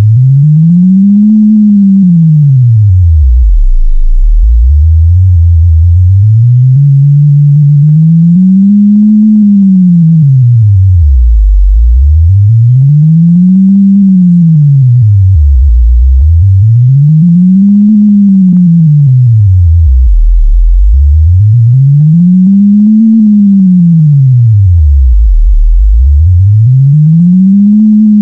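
A single low electronic sine tone glides smoothly up and down in pitch, in repeated arches every four to five seconds, with one slower rise in steps a few seconds in. It is a data sonification that turns a deafblind person's spatial experience with touch technology into sound.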